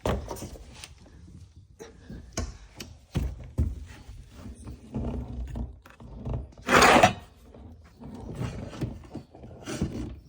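Handling noise from a steering cable being pulled through a boat's hull: scattered knocks, thumps and scrapes. A loud, short rush of noise comes about seven seconds in.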